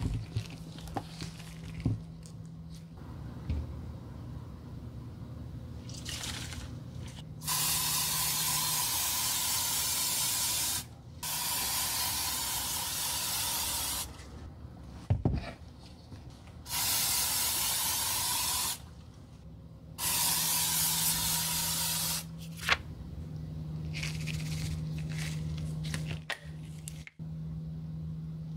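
Aerosol spray, likely leather waterproofing spray, hissing in four long, steady bursts of two to three seconds each, with short pauses between them.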